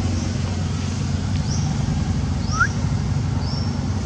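Steady low rumble of road traffic, with four or five short, high, rising chirps scattered over it and one lower rising squeak a little past the middle.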